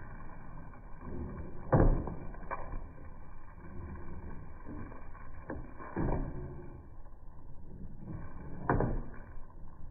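Steady low background noise with a few scattered soft knocks, the clearest about two seconds in and another near the end.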